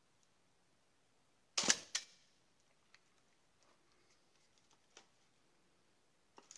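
Mamiya RZ67 medium-format film camera firing: a loud double click of the shutter release about a second and a half in, then a few faint clicks as the camera is handled, and another click just at the end.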